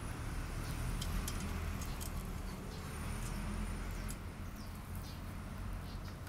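Scattered light clicks and taps of a radiator guard being handled and fitted against a motorcycle's radiator, over a steady low background hum, with a few faint high chirps that sound like birds.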